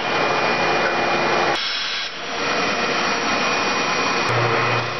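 Craftsman 12-inch bandsaw running and cutting through 2x4 offcuts, a steady saw noise that dips briefly about a second and a half in.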